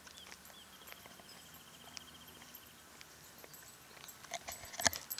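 Faint footsteps and scuffs on a concrete path while walking, with a few sharp clicks about four to five seconds in, the loudest near the end. A faint high, rapid ticking trill sounds in the background for about two seconds, starting about a second in.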